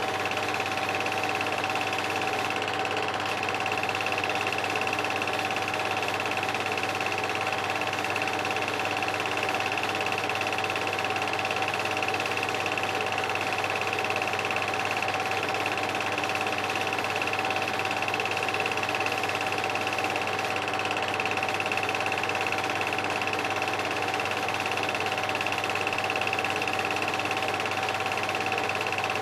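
Film projector running: a steady mechanical whir with constant high-pitched tones that never change, as heard when old silent home-movie film is played back and recorded.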